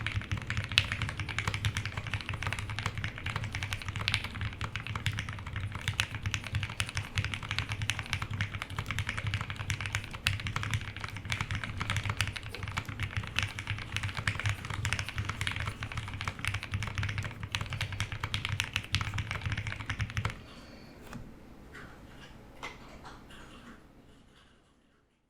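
Fast, continuous typing on an HHKB Polaris mechanical keyboard with lubed Gateron Black Ink v2 linear switches on a POM half plate with plate and case foam, and PBT keycaps, giving a soft, thocky keystroke sound. The typing stops about 20 seconds in, leaving a few quieter key taps before the sound fades out.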